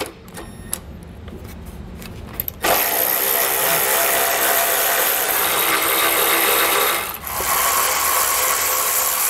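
Cordless power ratchet spinning out the bolts of a car's front bumper support: a few clicks as the socket goes on, then a steady motor whir from about 2.7 s in, broken by a short pause near 7 s before it runs again.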